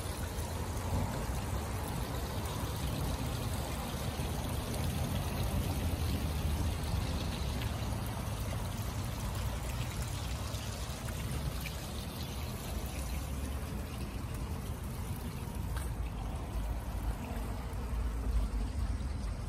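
Small garden-pond waterfall splashing steadily over stones into the pond, growing fainter in the second half. A low rumble runs underneath, strongest near the end.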